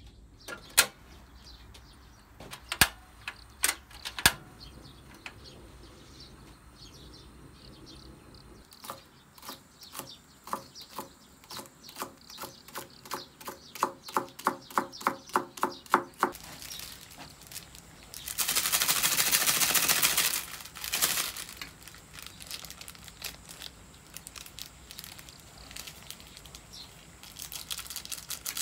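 Portable gas stove's igniter clicking four times, then a kitchen knife chopping green onion on a wooden cutting board, about two strokes a second for some seven seconds. Later comes a loud hissing rush about two seconds long, then light rustling and crinkling as a seasoning packet is handled.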